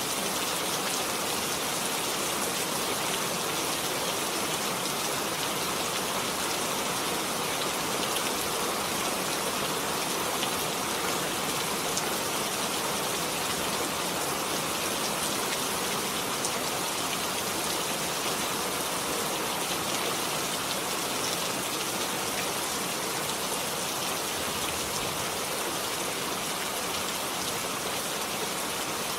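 Steady rain falling, a continuous even hiss dotted with the patter of individual drops.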